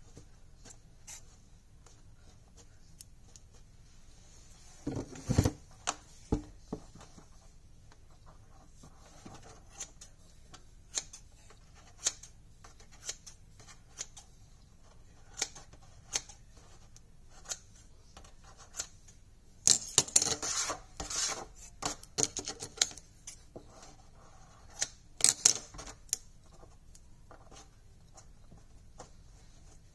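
Faux fur and a wire lampshade being handled by hand: scattered light clicks and rustling, a louder knock about five seconds in, and bursts of scratchy rustling around twenty seconds in and again a few seconds later.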